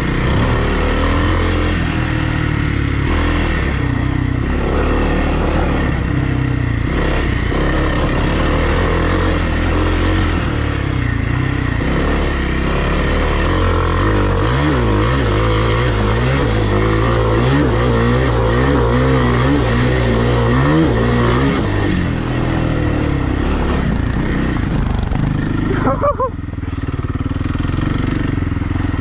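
Kawasaki KLX300R dirt bike's single-cylinder four-stroke engine running while riding a trail, the throttle opened and closed over and over so the engine note swings up and down in the middle. About twenty-six seconds in the sound drops sharply for a moment, then the engine carries on.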